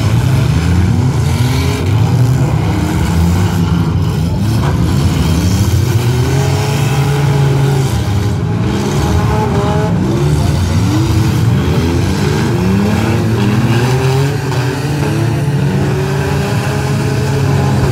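Engines of several compact demolition-derby cars revving at once, their pitch rising and falling again and again as the cars accelerate and back up in the arena.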